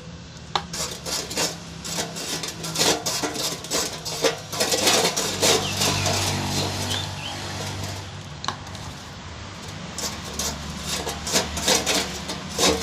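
Wire brush scrubbing the aluminium-to-copper pipe joint of a refrigerator evaporator in many quick, irregular scraping strokes, cleaning the leaking joint before repair. A steady low hum runs underneath.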